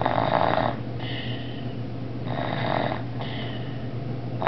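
A child asleep and snoring in a steady rhythm: a rasping snore about every two seconds, each followed by a softer, higher breath.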